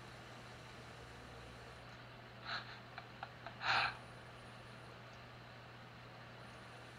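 Steady low electrical hum with faint hiss, broken about two and a half seconds in by a short hissing puff, a few small clicks, and a second, louder hissing puff near four seconds in.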